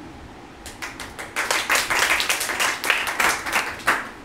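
A small group of people clapping their hands in applause, starting about a second in, thickening, and stopping shortly before the end.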